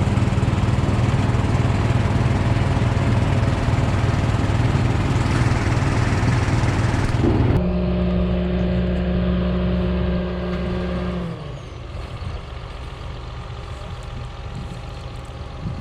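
Engine of farm machinery running steadily, with an abrupt change in its sound about seven and a half seconds in. Around eleven seconds in it drops slightly in pitch and level, and a quieter rumble carries on.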